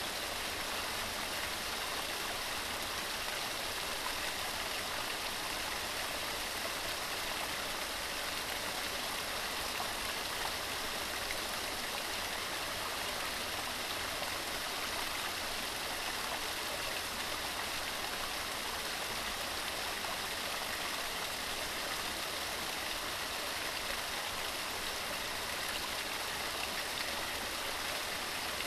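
Forest waterfall running steadily: an even, bright rush of falling water that never changes or breaks.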